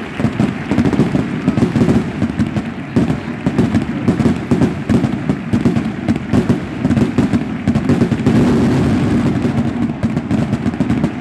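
Fireworks display going off: a dense, irregular barrage of bangs and crackles that keeps up without pause.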